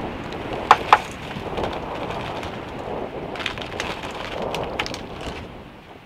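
Metal frying pan knocking twice against the grate of a portable gas stove about a second in, then lighter clicks and clinks of utensils, over a steady rushing hiss.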